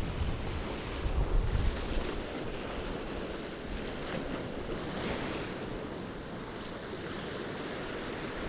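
Sea waves washing at the shoreline, with wind buffeting the microphone, heaviest in the first two seconds.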